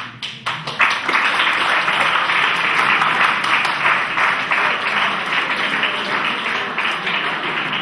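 Audience applauding: dense clapping that starts suddenly, swells within the first second and then holds steady.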